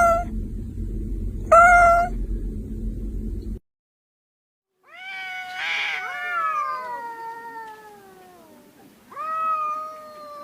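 Cat meowing and yowling: two short meows over a low rumble that stops abruptly, a second of silence, then a long yowl that falls in pitch, and a shorter held meow near the end.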